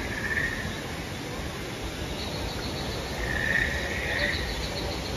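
Insect-like chirping and trilling calls over a steady outdoor background. A swelling chirp sounds at the start and again about three and a half seconds in, and a fast ticking trill runs from about two seconds in.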